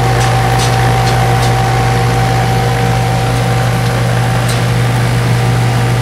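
Residential heat pump outdoor unit running in cooling mode: a steady, loud compressor hum with the condenser fan, and a few faint clicks as a pipe-clamp thermometer is fitted to the suction line.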